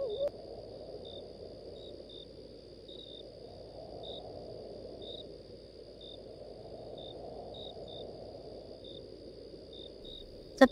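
Night forest ambience: crickets chirping in short separate chirps over a steady high insect drone, with a low rumble underneath that slowly swells and fades.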